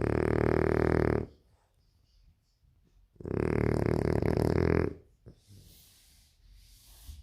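French bulldog snoring: two long, fluttering snores of about a second and a half each, some three seconds apart, with faint breath noise between them.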